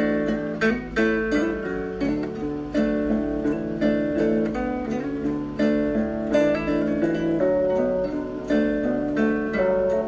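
Background music: a steady run of plucked string notes over a low bass.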